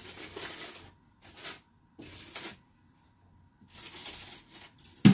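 Aluminium foil being crumpled by hand, crinkling in four bursts with short pauses between them, then a single sharp knock near the end.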